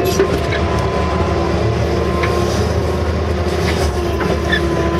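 Case CX160 excavator running under load, heard from inside the cab: a steady diesel engine with a held whine over it and a few light clicks and clanks as the machine digs.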